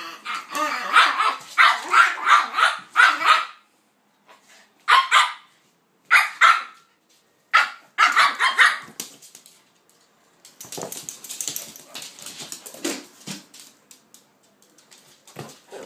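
Dogs at play, a pit bull and a King Charles spaniel, barking: a fast run of sharp barks over the first few seconds, then three short separate bursts of barking. After that comes a quieter, rougher stretch of noisier sounds.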